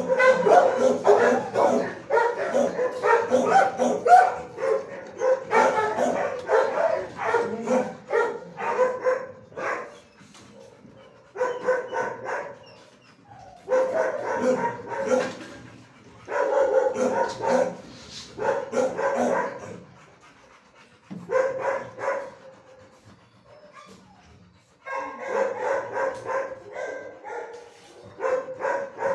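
Shelter dogs barking in rapid bouts of many barks, with short pauses between bouts.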